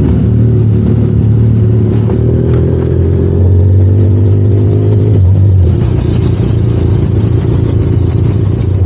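Motorcycle engine running as the bike pulls away and rides off at low speed, a steady low drone that turns rougher about five and a half seconds in.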